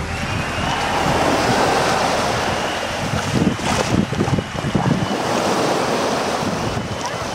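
Small waves breaking and washing up on a sandy beach, the surf swelling and ebbing, with wind buffeting the microphone.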